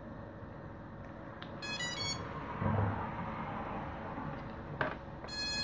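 Short electronic beeps: a quick rising run of high tones about one and a half seconds in, and another beep burst near the end. A dull knock comes between them.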